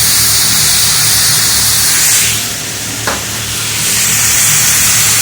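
Chicken, mushroom, pepper and onion stir-frying in a very hot oiled pan, sizzling loudly; the sizzle eases for a moment about halfway, then comes back.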